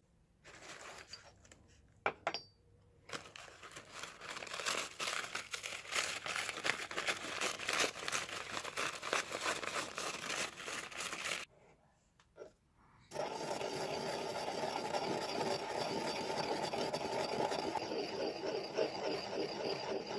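Paper towel crinkling and tearing as dried madder lake pigment is peeled and crumbled off it, a dense crackle of fine clicks. After a brief pause near the middle, a pestle grinds the dry pigment in a ceramic mortar with a steady scraping.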